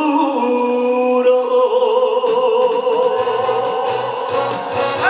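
Man singing live trot, holding one long note with vibrato, with music under it.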